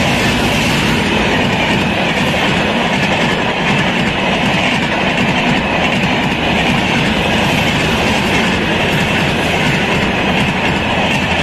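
Indian Railways LHB passenger coaches passing close at speed. A loud, steady rush of wheels on the rails and coach bodies going by.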